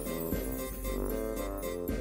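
Background music: a light instrumental tune with plucked or keyboard-like notes changing about twice a second.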